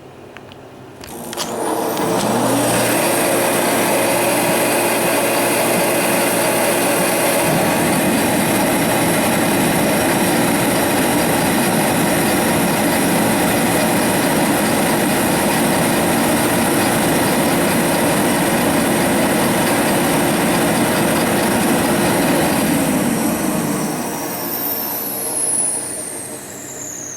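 Sears forced-air torpedo heater started up: its blower motor spins up with a rising whine about two seconds in, then the heater runs with a steady loud roar for about twenty seconds before winding down near the end with a falling whistle.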